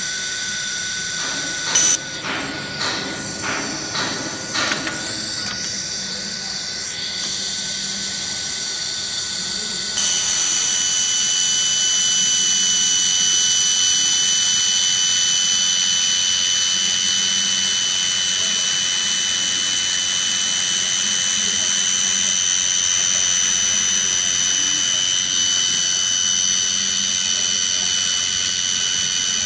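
Handheld fiber laser welder running a continuous weld on stainless steel sheet: a steady, loud hiss with high whining tones that starts suddenly about ten seconds in and holds. Before that a high whine is heard, with a few short clicks and crackles.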